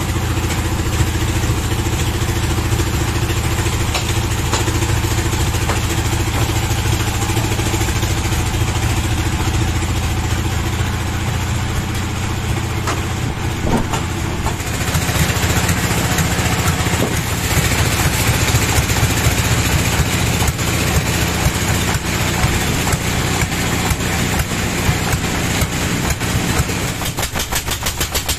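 Stationary diesel engine running steadily, driving a sawmill through a large belt pulley. About halfway through it grows louder and harsher, and near the end its firing strokes come through as a rapid, even chugging.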